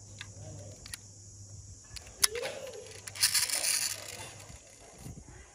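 Small die-cast toy car handled in the fingers: a few sharp little clicks, the loudest about two seconds in, then a brief rustling hiss a second later.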